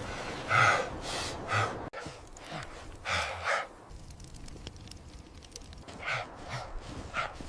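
Heavy, labored breathing: short panting breaths and sighs in uneven puffs, some with a slight voiced groan, as of exhaustion after hard hauling through snow.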